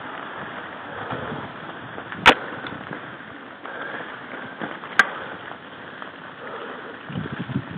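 Mountain bike riding up a gravel track: steady tyre and wind noise, with two sharp clicks about two and five seconds in, and low bumping and rattling near the end.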